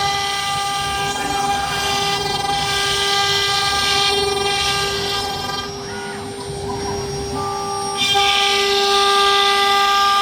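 AKM2040 CNC wood router running with a steady high spindle whine, overlaid by a rushing cutting noise as the bit works the wood. The cutting noise drops away around six seconds in and comes back louder at about eight seconds.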